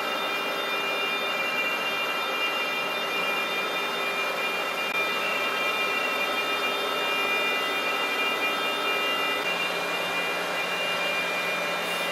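Wood-chip feeding machinery in a biomass gasification plant running: a steady mechanical noise with several high whining tones over it. About nine and a half seconds in, one of the whining tones drops out and a lower hum takes over.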